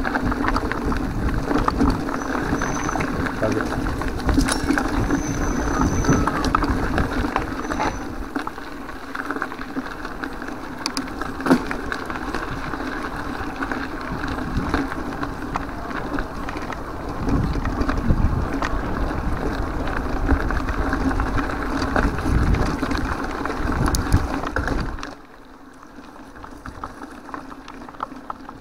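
Mountain bike riding a dirt and gravel track, heard from a handlebar-mounted camera: continuous wind and tyre rumble with scattered knocks and rattles from the bike. About 25 seconds in, the noise drops sharply to a much quieter level.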